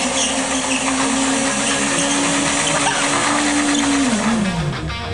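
Sport motorcycle engine held at high, steady revs while the rear tyre spins in a smoky burnout. About four seconds in, the revs drop away.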